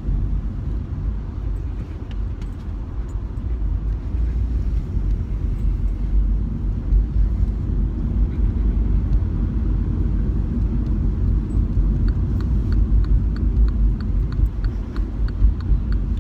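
Road noise inside a moving car: a steady low rumble. About twelve seconds in, the turn-signal indicator starts ticking evenly, about three ticks a second.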